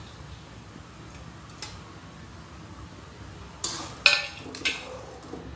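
Metal utensils clinking against a cooking pan as the boiled black chickpeas are tipped into the gravy: a few sharp clinks about three and a half to four and a half seconds in, the loudest with a brief ring.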